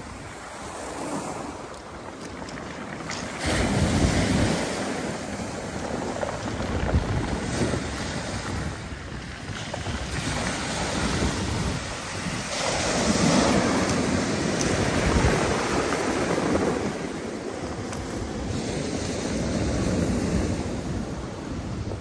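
Black Sea surf breaking and washing up on a pebble beach, swelling and falling in surges a few seconds apart, with wind buffeting the microphone. It is quieter for the first few seconds, then grows louder.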